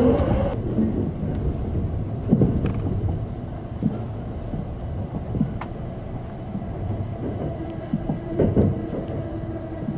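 Limited express train running, heard from inside the passenger car: a steady low rumble of wheels on the rails, with a few louder knocks, about two and a half seconds in and again near the end.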